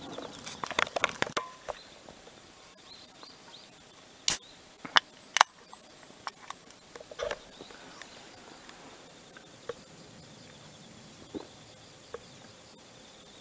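Fried egg crackling and spitting in a metal mess tin over a wood fire for the first second or so. Then a few isolated sharp clicks and light knocks of metal utensils and plate being handled.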